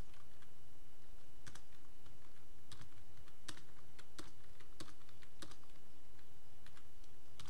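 Typing on a computer keyboard: about a dozen separate, irregularly spaced keystrokes.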